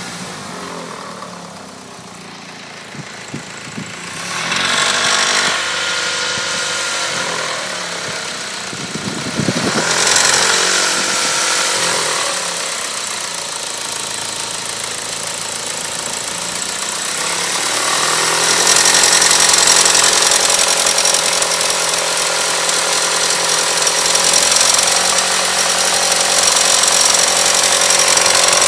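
Car engine running with a metallic knocking rattle, like two metal parts close together striking each other, from a faulty timing belt tensioner. The engine speed rises in steps, louder about four, ten and eighteen seconds in.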